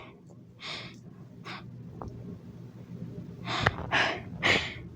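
A person breathing in short, audible breaths, about five in all, with most of them bunched near the end, and a faint click or two.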